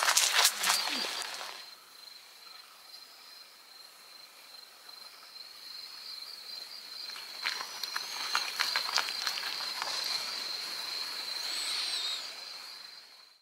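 A steady, high insect trill of night crickets runs throughout. Rustling and scratching on fabric and bedding come loudest in the first second or two and again in the middle.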